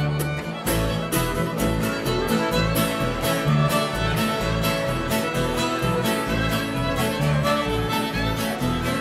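Bluegrass string band playing a fiddle tune instrumentally: fiddle lead over a steady beat of upright bass and strummed guitar.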